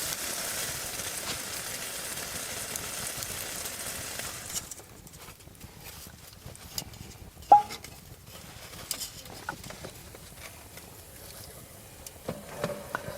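Chicken sizzling in a pan over a campfire, a steady hiss that cuts off about four and a half seconds in. After that it is quieter, with scattered small clicks and one sharp clink.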